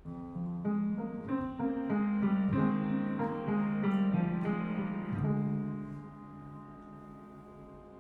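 Instrumental song intro played through Marten hi-fi loudspeakers. It starts suddenly out of silence with a run of struck melodic notes for about five seconds, then settles into a held chord that fades to a quieter sustained tone.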